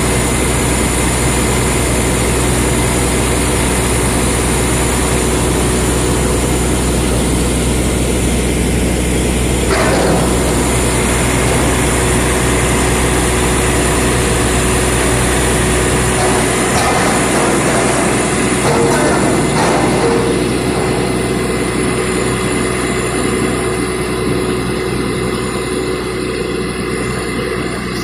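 Diesel engine of a crawler excavator running steadily during manual refuelling. Its deep low hum drops away about sixteen seconds in.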